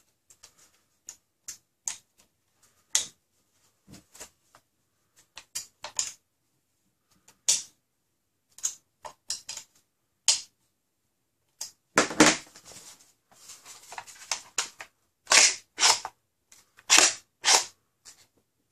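Hex key clicking and tapping as screws are turned into a clear plastic blaster shell: small irregular clicks, a few a second. From about twelve seconds in come louder clacks and rattling of the plastic body as the assembled blaster is handled and lifted.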